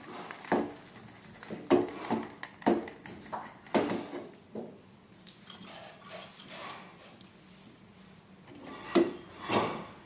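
Hand work on a lead-sinker casting job: irregular scraping and rubbing with sharp knocks. Several knocks come in the first four seconds and two more near the end, with quieter scraping between.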